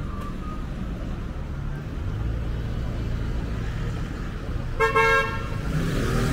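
A car horn gives one short honk about five seconds in, over a steady low rumble of street traffic. The traffic noise swells near the end.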